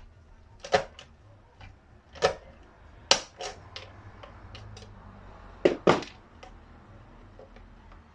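Tools and parts being handled in workshop work: a handful of sharp, irregular knocks and clinks, two of them in quick succession about six seconds in, over a low steady hum.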